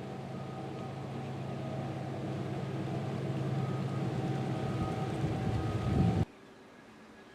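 Engine running at a steady pitch, growing louder for about six seconds, then cut off abruptly.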